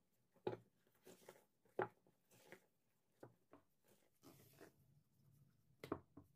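Spatula scraping and knocking against a stainless steel mixing bowl while folding almond flour and sugar into meringue for macaron batter (macaronage). Soft irregular scrapes, with sharper knocks about half a second in, near two seconds and near six seconds.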